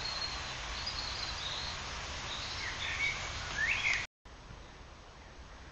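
Small birds chirping over a steady outdoor hiss: a few short high calls, the loudest of them near the four-second mark. After a brief dropout about four seconds in, only a fainter hiss remains.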